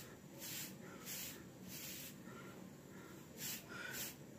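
Bristle hairbrush stroked briskly over short, product-coated hair: faint scratchy swishes about one every half second, with a short gap in the middle.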